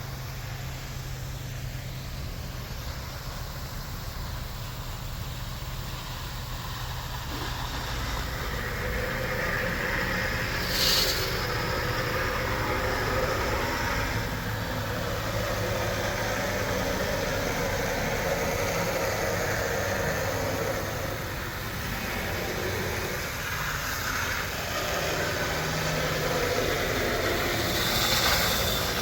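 A steady low mechanical hum like a motor or engine running, with a short hiss about eleven seconds in.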